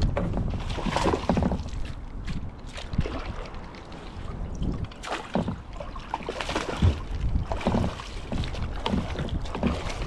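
Wind buffeting the microphone with a steady low rumble, mixed with scattered irregular knocks and splashy bursts of handling noise as a hooked bass is brought in.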